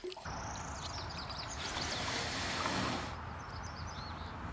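Small songbirds chirping again and again over a steady rushing outdoor background with a low rumble; the rushing swells to a louder hiss for about a second and a half in the middle.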